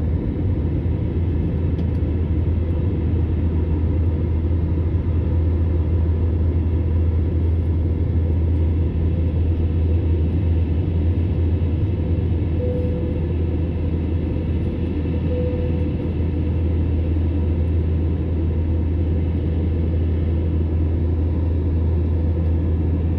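Steady low rumble of a vehicle in motion, even and unbroken throughout.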